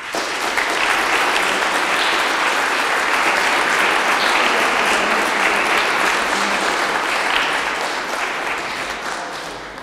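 Audience applauding, starting abruptly, holding steady and dying away gradually over the last few seconds.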